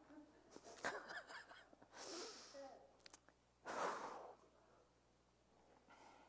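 A woman's faint, audible breaths: three short breaths, the loudest about four seconds in.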